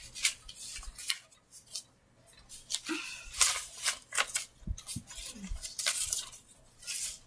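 Paper play-money bills rustling and crinkling as hands pile them over plush toys, in a string of short, irregular rustles.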